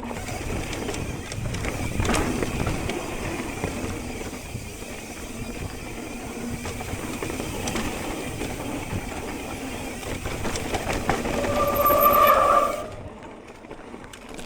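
Mountain bike rolling fast down a dirt trail: tyre noise, wind and the frame and drivetrain rattling over bumps. Near the end the disc brakes give a loud squeal for about a second as the rider brakes hard, and then the noise falls away.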